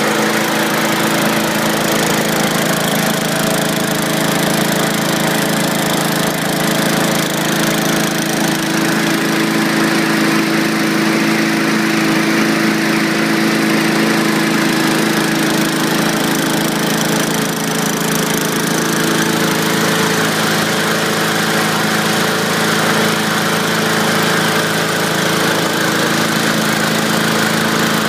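Tecumseh 6.5 hp single-cylinder four-stroke engine on a Ryobi push mower running steadily with the blade turning. The mower is vibrating a lot because one tip of the blade is broken off, putting it out of balance.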